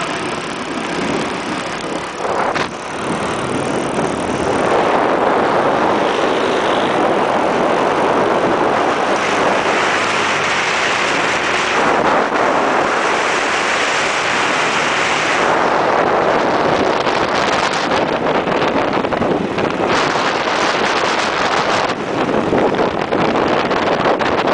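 Wind rushing over the microphone with a small motorbike engine running underneath while riding along a road; the rush picks up about four seconds in.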